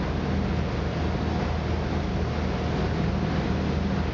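Boat engine running steadily: a low drone with a faint steady whine above it, under a constant rushing hiss of wind and water.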